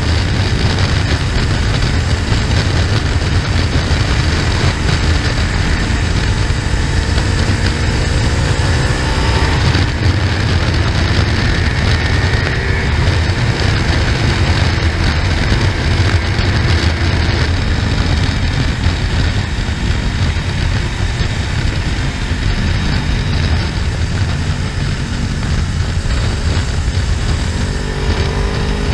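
Motorcycle running at road speed, heard through heavy wind rumble on the onboard microphone. The engine note rises briefly about a quarter of the way in and again near the end.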